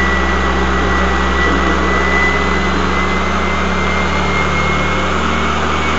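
Prototype steam turbine running steadily, its steam raised by an ethanol-gas burner: a constant mechanical whir over a low hum, with a thin high whine that creeps slightly up in pitch.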